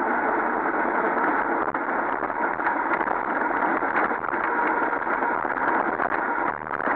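Steady rushing wind and tyre noise on a bicycle-mounted camera's microphone while rolling downhill on asphalt, dipping briefly near the end.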